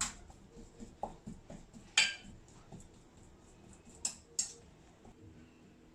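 Boiled potatoes being mashed by hand: quiet working sounds with scattered sharp knocks of the utensil against the dish, the loudest about two seconds in and two more close together near four seconds.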